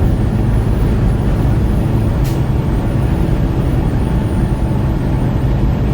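Steady engine hum and road noise of a vehicle cruising at highway speed.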